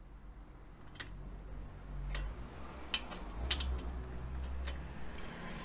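Small metallic clicks and ticks, a few irregular ones spread over several seconds, as a duralumin frame slider and its Allen bolt are threaded by hand onto the engine mounting shaft, with a low handling rumble underneath.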